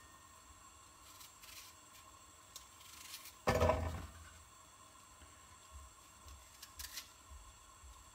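Small kitchen knife cutting through an apple held in the hand, with faint clicks of the blade and apple pieces dropping into a frying pan; the loudest sound is a single thud about three and a half seconds in.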